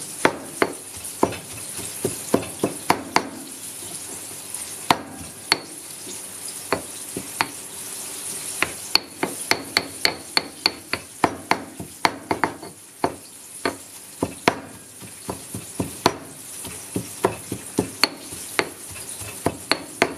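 Stone pestle pounding in a granite mortar, sharp knocks coming irregularly two or three a second with brief pauses. It is mashing boiled fish flesh into curry paste for a fish curry sauce.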